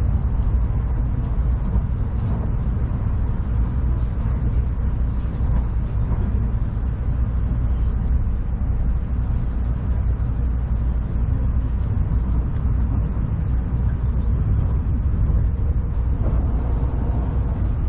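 Cabin noise inside a moving Tokaido Shinkansen train: a steady low rumble from the wheels on the rails and the running gear.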